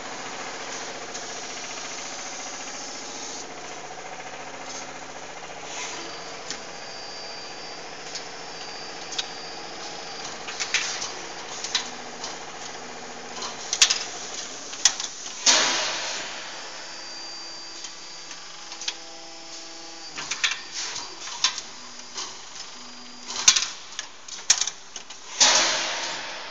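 Automatic steel-billet feeder of a cold-forging hydraulic press line at work, over the steady hum of the hydraulic machinery. Sharp metallic clanks ring out irregularly, as the steel billets and pneumatic pushers knock in the feed chute; the loudest come around the middle and near the end.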